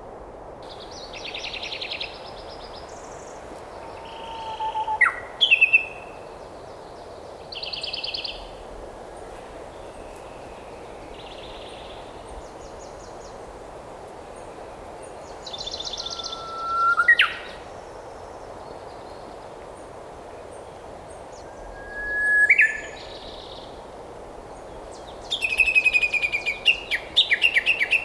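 Birds calling over a steady background hiss: short buzzy calls, three whistled notes that slide and then swoop sharply upward, and a quick run of chattering calls near the end.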